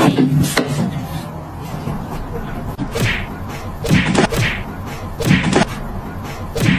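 Two house cats sparring on a cat tree: a string of short, sharp bursts of swats, thumps and brief cat yowls.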